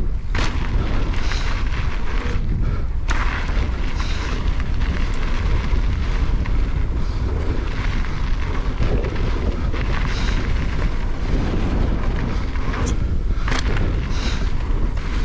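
Continuous wind buffeting on the microphone and the rumble of a Canyon Spectral mountain bike riding fast over bike-park dirt, with scattered sharp clicks and rattles from the bike.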